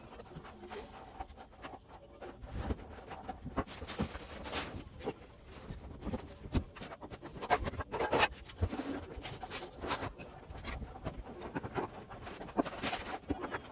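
Kitchen cleaning: irregular rubbing and scrubbing with scattered clicks and knocks of things being handled.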